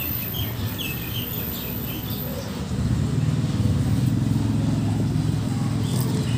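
Low rumble of a motor vehicle engine, growing louder about halfway through, with a few short bird chirps in the first half.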